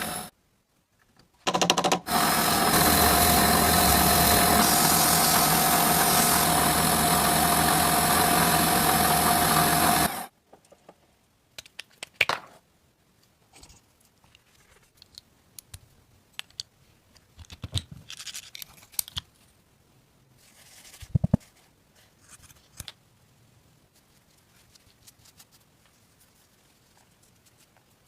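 A power tool runs steadily with a constant whine for about eight seconds, then cuts off. After it come faint scattered clicks and scrapes of parts being handled.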